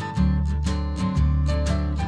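Instrumental background music: plucked notes over a bass line, in a steady beat of about two notes a second.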